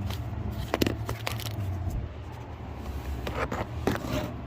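A few sharp metallic clicks and taps as a socket and ratchet are worked onto an 8 mm belt-tensioner bolt, over a steady low hum.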